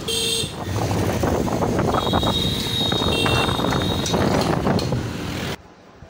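Riding a scooter through town traffic: wind buffeting the microphone over engine and road noise, with a short horn beep right at the start. About 5.5 seconds in it cuts off abruptly to the quiet of a room.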